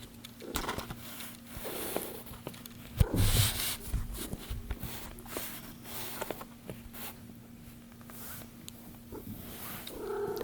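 Rustling and light ticking from one-week-old kittens moving and being handled, with a louder rustle about three seconds in and a short pitched squeak near the end.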